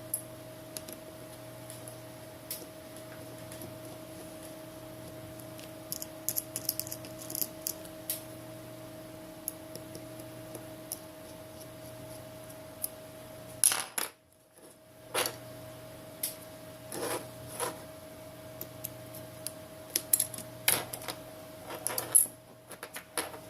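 Small metallic clicks and taps from a screwdriver and tiny phone screws being handled on a work surface, scattered at first and more frequent in the second half. A steady electrical hum sits underneath.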